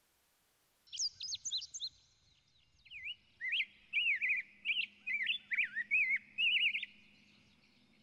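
Small songbirds chirping in quick, twittering calls. A short burst comes about a second in, then a longer, denser run of chirps from about three seconds in, which stops a second before the end.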